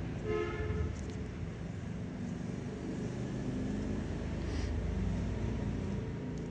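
Steady low background rumble, with one short pitched tone about half a second in.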